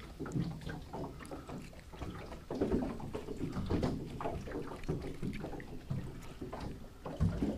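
Small waves lapping and slapping against an aluminium jon boat's hull, with scattered light knocks and rustling.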